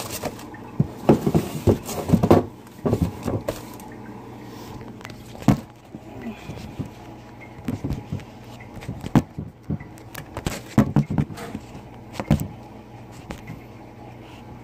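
Handling noise of a phone camera being picked up, moved and set down: irregular knocks, clicks and rubbing in clusters, over a steady low hum.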